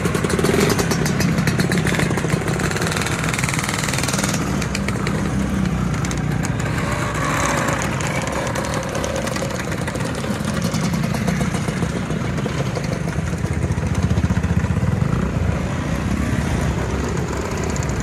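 A procession of motor scooters riding past one after another, their small engines running at low speed, the sound swelling and easing as each one passes.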